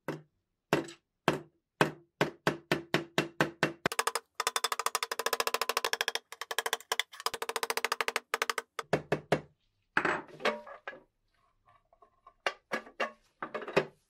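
Small hammer tapping a punch to drive the hinge pin into a giant steel lighter case, each strike ringing metallically. Single taps speed up into a rapid string of light blows through the middle, then come in slower groups near the end.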